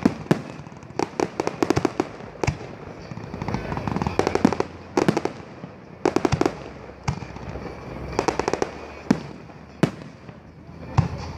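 Aerial fireworks display: shells bursting in sharp single bangs, mixed with clusters of rapid crackling from the bursting stars, every second or two.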